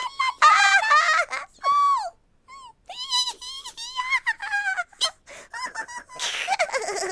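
Squeaky, high-pitched Teletubby character vocal sounds: a string of short wordless calls, many sliding down in pitch, with a breathy, giggly stretch near the end.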